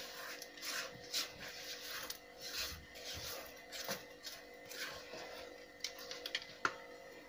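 Spatula scraping thick apple-cake batter out of a stainless-steel mixing bowl into a baking pan: soft, irregular scrapes and rubs, with a few light clicks.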